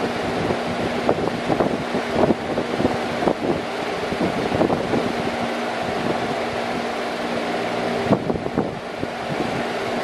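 Large electric fan running steadily: a rushing of air over a low, even motor hum, with irregular short gusts of air buffeting the microphone.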